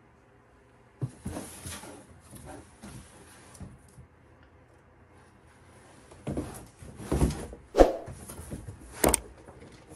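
Irregular knocks, bumps and rustling. It starts about a second in, goes quieter in the middle, then comes back with louder thumps and two sharp knocks near the end.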